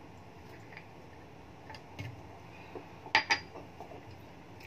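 Small plastic bottles handled on a countertop: a Yakult bottle tipped to pour into a glass shot glass, then a cluster of sharp clicks and knocks about three seconds in as a bottle is set down and the Sprite bottle's cap is gripped.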